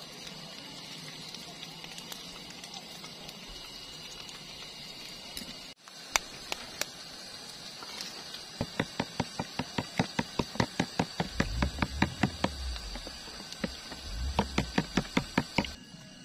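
A steady hiss, then after a brief break a run of quick, evenly spaced taps, about three or four a second, with low thuds under some of them.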